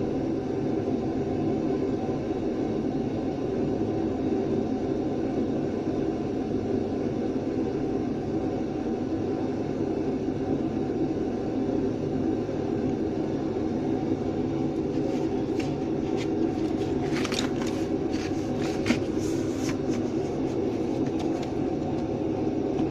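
Cheap industrial heat gun running with a steady blower hum. From about fifteen seconds in, short clicks and scrapes of handling sound over it.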